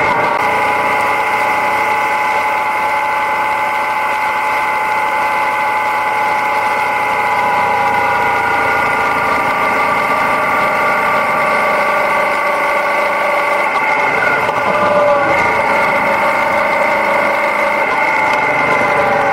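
Yamaha Ténéré 700's parallel-twin engine running at a steady speed on the move, its note briefly shifting in pitch near the end.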